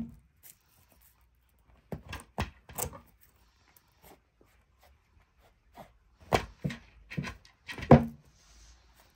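Scuffs and knocks from a cat clawing, rubbing and clambering over fabric-covered cushions on a wooden cat step in a silver-vine (matatabi) frenzy. The knocks come in two clusters, one about two seconds in and a louder one from about six to eight seconds in.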